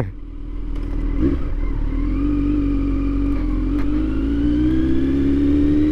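Kawasaki Z900's inline-four engine running under way, its pitch climbing slowly as the bike gathers speed, with low wind rumble and a couple of faint clicks. The rider hears a ticking he likens to valves and suspects a loose exhaust.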